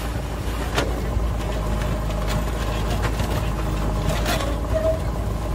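Sand and small gravel scraping and pouring as a plastic toy loader bucket is pushed through a sand pile by hand and tipped into a toy trailer, with a couple of sharp gritty clicks, over a steady low rumble.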